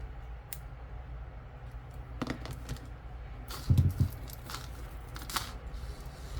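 Small clicks and taps of costume jewelry being handled and sorted, with two dull thumps just under four seconds in, over a steady low hum.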